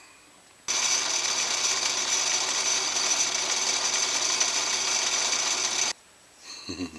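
Drill press motor running steadily, spinning a small wooden knob chucked in it while a paper towel is held against the knob. It starts about a second in and cuts off abruptly near the end.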